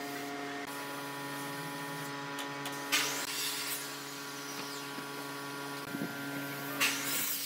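A steady hum with several held tones, broken twice by short hissing bursts of compressed air from a spray gun applying finish, about three seconds in and near the end.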